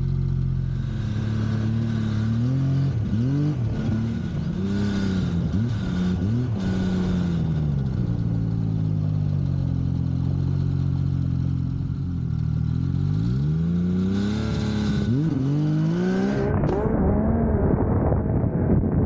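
Yamaha race snowmobile engine running, revved in several quick rising-and-falling throttle blips, then running rougher and duller near the end.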